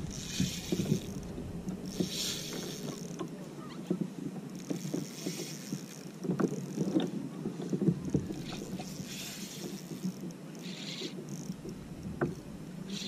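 Sea water lapping and splashing against a plastic kayak hull, in hissy swells every second or two, with small knocks and creaks from the boat and tackle.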